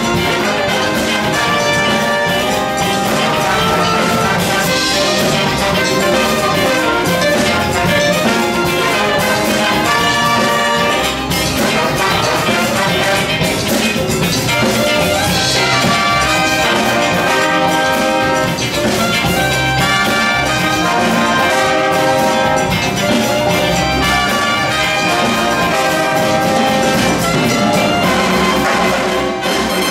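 Big band playing live: saxophones, trumpets and trombones in full ensemble over electric guitar and Latin percussion (congas and timbales), loud and steady throughout.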